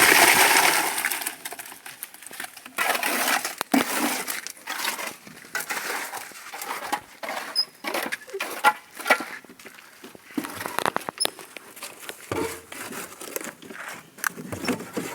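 Irregular scraping and knocking of concrete work with a wheelbarrow and hand tools, in short uneven bursts with sharp clicks between them, loudest at the start.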